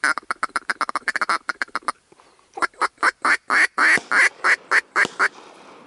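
Duck quacking: a fast run of short quacks, then after a brief pause a slower series of louder quacks that builds and then tapers off.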